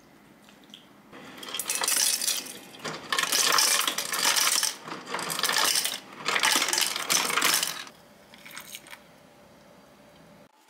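Ice cubes dropping from a countertop water purifier's ice dispenser into a glass, clattering in four bursts over several seconds, with a short rattle of ice near the end.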